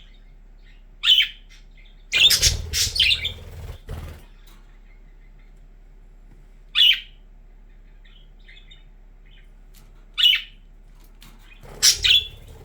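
Budgerigars giving short, sharp contact calls a few seconds apart. About two seconds in there is a two-second flurry of calls over a rustling, fluttering noise, and a quick double call comes near the end.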